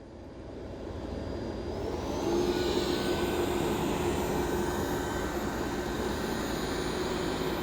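Dreame D9 robot vacuum's suction fan spinning up over about two seconds, then running steadily with a hum and a faint whine as it starts a spot clean.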